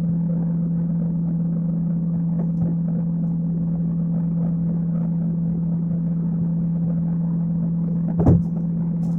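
A pot of water with betel leaves and anise boiling on a stove, a fine crackle under a steady low hum. One short knock about eight seconds in.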